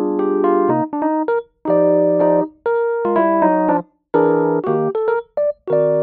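Background music: electric piano playing chords and a melody in short phrases, broken by several abrupt gaps of silence.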